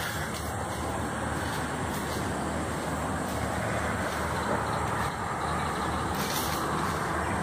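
Steady rushing noise with a low rumble underneath and a few faint clicks: wind and handling noise on a handheld camera's microphone while climbing in a tree.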